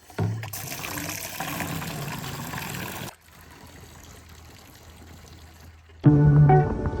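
Water running from a push-button water tap: a steady rushing stream for about three seconds, then a fainter flow. Guitar music starts about a second before the end.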